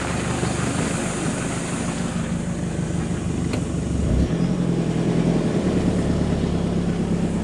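Four-wheel-drive vehicle's engine running as it drives slowly over a rough campground track, the engine note growing louder and firmer about four seconds in.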